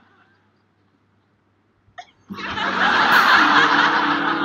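Sitcom studio audience laughing: a burst of laughter trails off, then after a short pause a second loud burst of laughter comes in about two seconds later and cuts off abruptly near the end.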